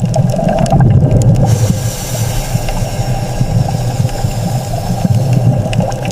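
Deep underwater rumble with a wash of hissing water coming in about a second and a half in, and a few faint clicks near the end.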